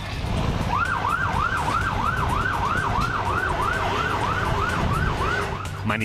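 Police vehicle siren in a fast yelp, its pitch rising and falling about three times a second, starting about a second in, over low street noise.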